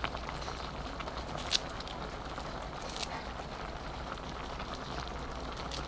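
Soup boiling in a stainless steel pot on a gas stove: a steady bubbling hiss over a low hum. A few sharp clicks come at about a second and a half and three seconds in.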